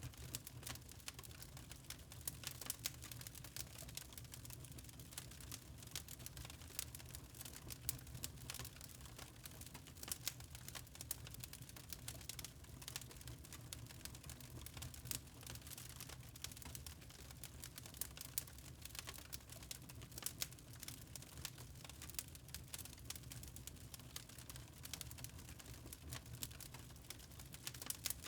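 Wood fire crackling in a fireplace: quick, irregular pops and snaps over a low, steady rumble.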